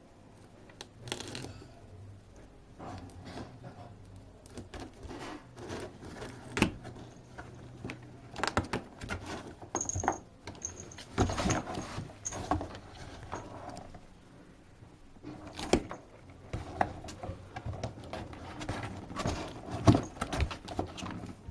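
A cat scrabbling about in a box of Christmas tree decorations: irregular rustling and scraping with sharp knocks and clinks, and a brief high ring about halfway through.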